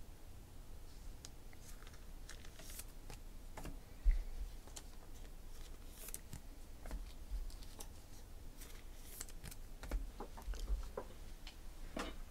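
Faint scattered clicks and rustles of trading cards being handled in the hand, with a low thump about four seconds in and a few more a little before the end. A sharper cluster of clicks near the end, as the stack of cards is set down on the table.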